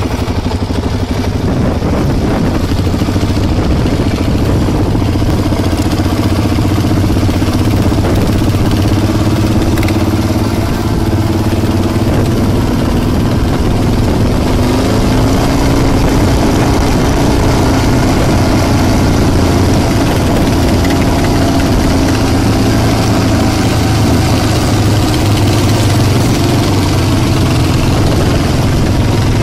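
Motorcycle engine running while riding, its pitch drifting up and down with the throttle, with wind rushing over the microphone.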